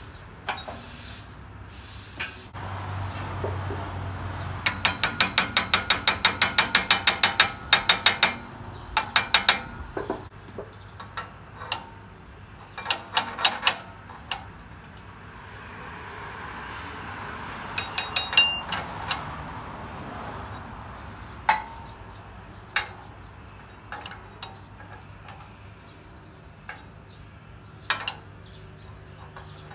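Shop press being worked while a connecting rod and crank pin are pressed into a motorcycle crankshaft flywheel, here a Honda Dash crank with a Yoko rod. It gives a quick run of metallic ratcheting clicks, about three or four a second, a few seconds in, then scattered clicks and knocks.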